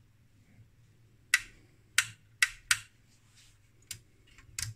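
Sharp clicks of a small front-panel toggle switch on a homebrew frequency counter being flicked on and off, about six clicks starting a second in, as the unit is power-cycled with its power supply faulty.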